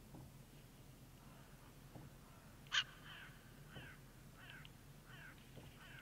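A crow-family bird calling: one sharp, loud note about three seconds in, then a run of short, falling calls repeated about every 0.7 seconds.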